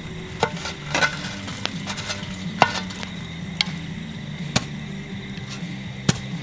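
Steel shovel scraping and clinking on the cast-iron camp oven lid as hot coals are shovelled off it: a string of sharp clinks and scrapes about a second apart.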